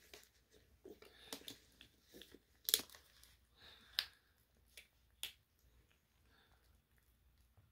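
A young kitten chewing wet cat food from a stainless steel bowl, heard as a string of sharp clicks and smacks. The loudest comes a bit under three seconds in, and they die away after about five seconds.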